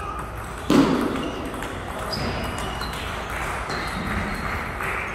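Table tennis rally: a celluloid-type ball being struck by paddles and bouncing on the table, with short high pings every second or so. A loud thump less than a second in is the loudest sound.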